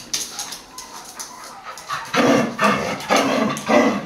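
Dog giving a run of short whines and vocal grumbles, starting about two seconds in, about two a second: excited, wanting to play.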